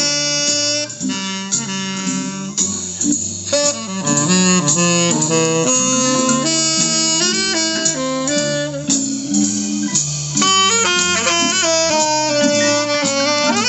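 Recorded music playing through hi-fi speakers driven by a vintage 1960s Kenwood amplifier. A held, gliding lead melody runs over bass notes.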